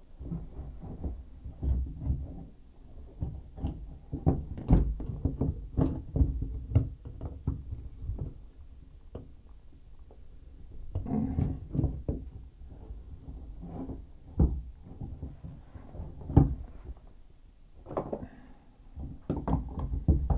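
Irregular knocks, taps and clatter of tools and parts being handled by hand while working on a shower valve in a tub/shower surround, in uneven clusters with a few sharper knocks.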